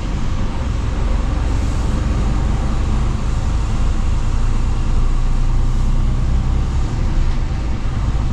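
Truck engine and road noise heard from inside the cab while driving: a steady low rumble with no sudden changes.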